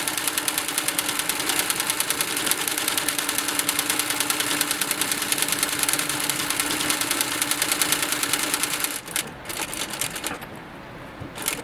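Industrial sewing machine stitching a leather strap, running fast with an even needle rhythm over a steady motor hum. It stops about nine seconds in, and a few light clicks follow.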